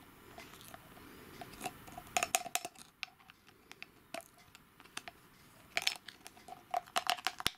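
Diamond-painting drills (tiny resin rhinestones) clicking as they are tipped from a plastic drill tray into a glass jar, with the tray's edge ticking on the glass rim. The clicks come in scattered clusters, busiest about two seconds in and again near the end.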